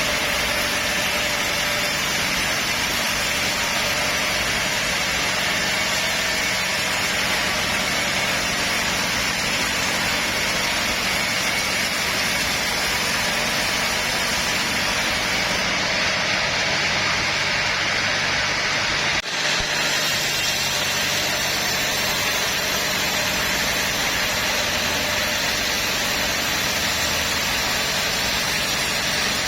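Sawmill machinery running steadily, a constant engine-like drone with a brief dip about 19 seconds in.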